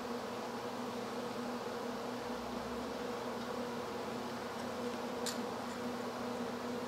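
A steady low electrical buzz, one droning tone with an overtone above it, and a single light click about five seconds in.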